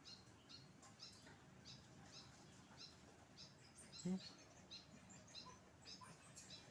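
Faint background bird chirping: short high chirps repeated about two a second.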